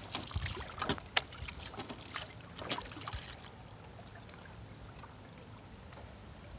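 Water splashing and knocking close to the microphone from a small boat on calm water, with sharp crackles for about the first three seconds, then a steady low rumble.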